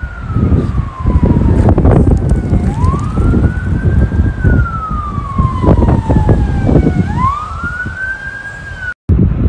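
Siren wailing, its pitch rising quickly and then sinking slowly in long cycles of about four to five seconds, over a heavy rumble of wind on the microphone. It cuts off abruptly near the end.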